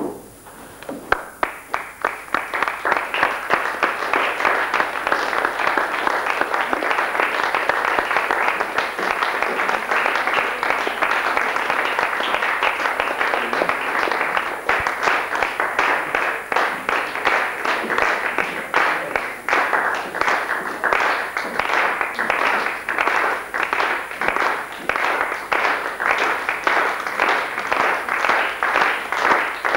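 Theatre audience applauding. The applause starts about a second in and swells, then about halfway through it settles into rhythmic clapping in unison, roughly two to three claps a second.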